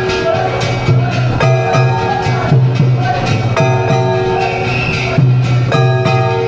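Gion festival float music: steady drumming with ringing struck metal bells, the bells sounding about every two seconds in a repeating pattern.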